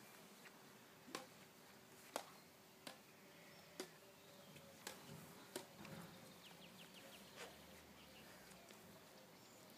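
Badminton rackets striking a shuttlecock back and forth in a rally: a series of sharp, short taps, about seven, roughly a second apart.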